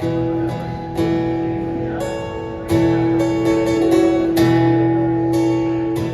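Acoustic guitar playing chords, a few strums left to ring with lighter notes between them; the loudest strum comes a little before halfway.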